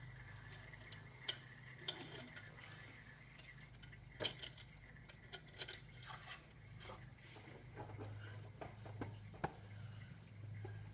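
Scattered light clicks and clinks of small parts being handled while the engine oil is topped up, over a faint steady low hum.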